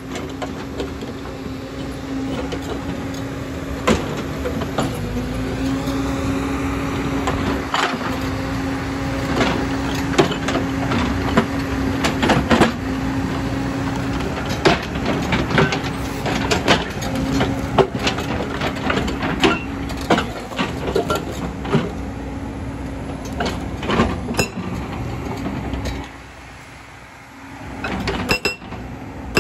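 Hydraulic breaker on a JCB tracked excavator hammering large stone, with sharp irregular cracks and knocks of the chisel and rock over the steady drone of the excavator's diesel engine under load. The hammering drops away briefly near the end, then starts again.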